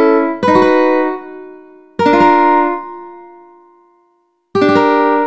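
Ukulele chords, each struck once and left to ring and fade: a chord rings at the start, then new chords come in about half a second in, about two seconds in, and near the end.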